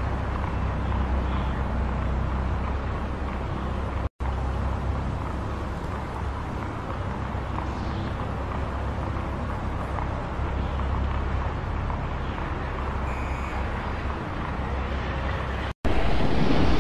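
Steady city traffic ambience, a sound-effects bed laid over silent film. It drops out briefly twice; after the second break, about a second before the end, it gives way to a louder rush of water and wind.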